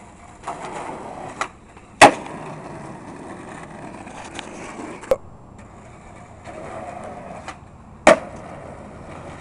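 Skateboard wheels rolling on asphalt, with two loud clacks of the board hitting the ground, about two seconds in and near the end, and a lighter click around the middle.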